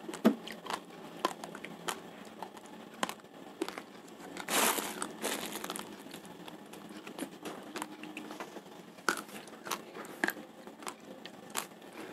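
Plastic rice sack rustling and crinkling as hands open and handle its top, with scattered small clicks and taps; a louder burst of rustling comes about four and a half seconds in.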